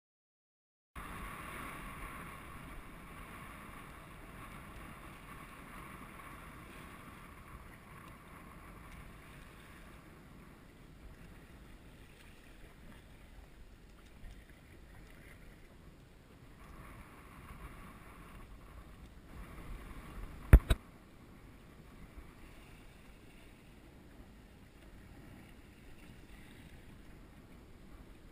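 Steady wind and water noise aboard a small drifting fishing boat, starting about a second in. Two sharp knocks come close together about twenty seconds in.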